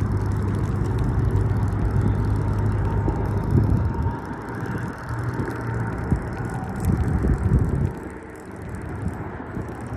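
Wind buffeting the phone's microphone: a loud, uneven low rumble that eases off for a moment near the end.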